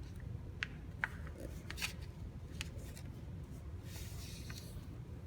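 A sheet of paper being folded and creased by hand. A few light crinkles and ticks are followed about four seconds in by a brief rustle as the paper is moved, over a low steady hum.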